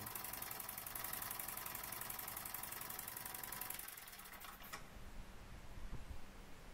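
Junior Engineer SE-100 model beam steam engine running on compressed air at about 15 to 18 PSI, making a rapid, fine mechanical clatter. The clatter stops about four and a half seconds in as the engine comes to rest. A small airbrush compressor hums steadily throughout.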